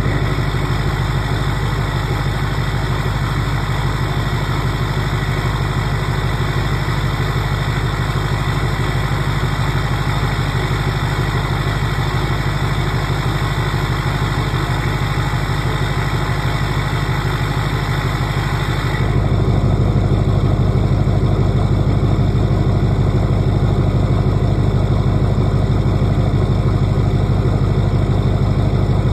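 2005 LLY Duramax 6.6-litre V8 turbodiesel idling cold through a straight-piped exhaust, just after a cold start without the block heater plugged in. About two-thirds of the way through, the sound changes: the higher clatter fades and the low exhaust note gets a little louder.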